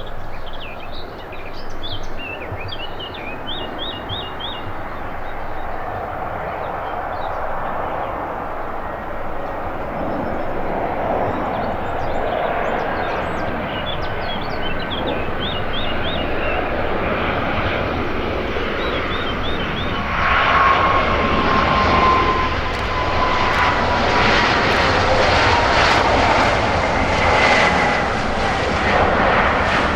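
Embraer E195AR airliner on landing approach, its twin General Electric CF34-10E turbofans growing louder as it nears. About two-thirds through the sound jumps up and a high engine whine comes in, slowly falling in pitch.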